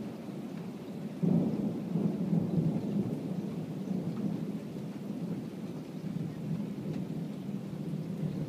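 Thunder breaking suddenly about a second in and rumbling on, slowly fading, over steady rain.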